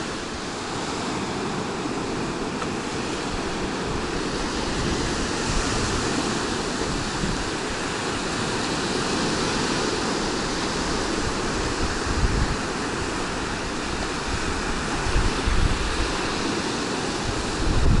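Black Sea surf breaking on a sandy beach: a steady wash of large waves. From about two-thirds of the way through, wind gusts buffet the microphone with a low rumble.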